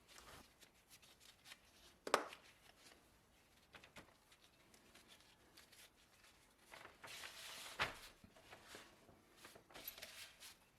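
Quiet handling noises: light clicks and rustles, with a sharp knock about two seconds in and a busier spell of rustling ending in another knock around eight seconds in.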